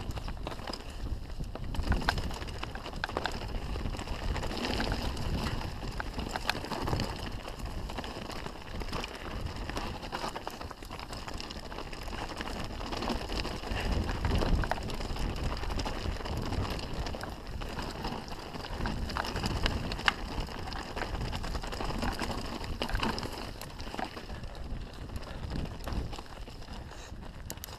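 Canyon Strive full-suspension enduro mountain bike descending a rocky dirt trail: steady tyre and wind noise on the microphone, broken by frequent sharp clicks and rattles as the bike hits rocks and roots.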